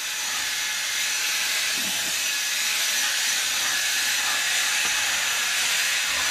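Zedar cordless handheld vacuum cleaner running at speed: a steady hissing rush of air with a high motor whine.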